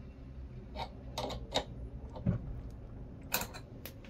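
Steel open-end wrenches clicking against the collet nut and spindle as the collet nut is tightened on a 10 mm end mill, a few sharp separate metal clicks and one duller knock over a low steady hum.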